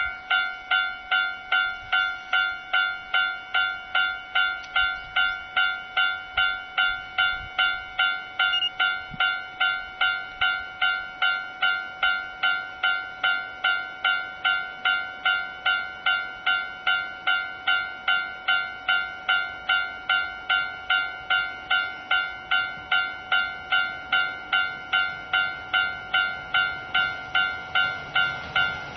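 Japanese railway level-crossing warning bell ringing steadily, about two dings a second, signalling that a train is approaching.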